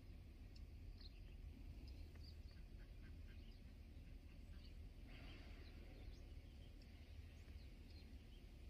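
Near silence: faint outdoor background with a low rumble and scattered faint, short bird chirps.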